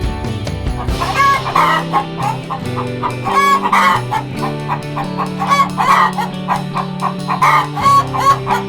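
Domestic hens clucking repeatedly, starting about a second in, over light background music.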